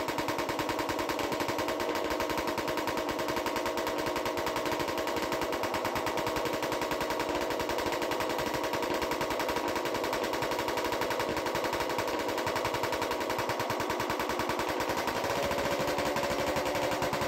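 Suzuki RM250's single-cylinder two-stroke engine running on a straight pipe, really loud, with a fast, even crackle of exhaust pulses, on its first run after a full engine rebuild. It is running a little rich, and its pitch rises slightly near the end as the revs come up.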